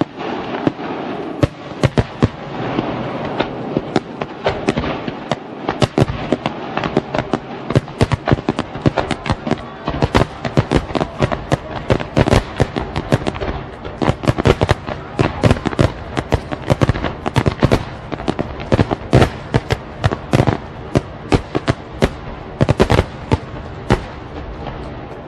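Fireworks going off: a dense, irregular run of sharp bangs and cracks, several a second, that starts suddenly and thins out near the end.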